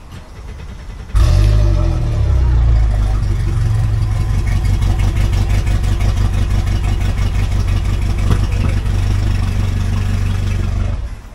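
Mercury outboard motor starting on the key: it catches about a second in, revs briefly, then settles into a steady idle. The sound cuts off suddenly near the end.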